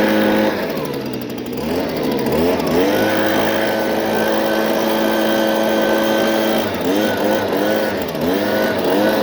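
A motor repeatedly speeding up to a steady pitch and dropping back: one long run of about four seconds in the middle, then several short, quick revs near the end.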